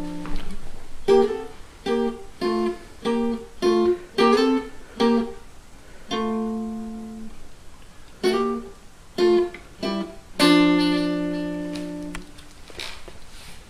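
Hollow-body archtop guitar playing a slow melody in double stops, two notes a sixth apart plucked together. The pairs come about two a second, with longer held notes around the middle and near the end.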